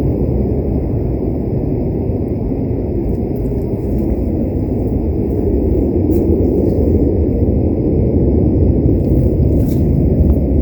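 A deep, continuous rumbling roar from the sky, of unknown origin, sounding like military jets or a tornado just beyond the trees; it holds steady and grows slightly louder.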